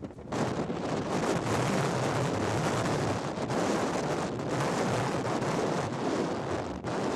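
Strong wind buffeting the microphone: a loud, dense rushing noise, dipping briefly just after the start and again near the end.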